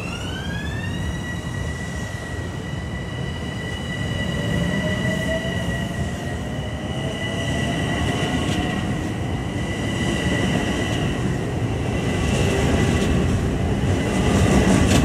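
Long Island Rail Road M7 electric multiple unit accelerating past the platform. Its traction motors give a whine that rises in pitch in the first second and then holds steady, with a second, lower whine climbing slowly a few seconds in, over a rumble of wheels on the rails. The sound grows louder as more cars go by.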